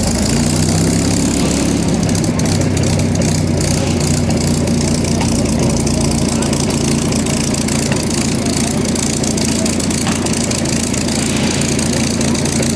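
P-51 Mustang's liquid-cooled V-12 aero engine running steadily at idle, just after catching on start-up.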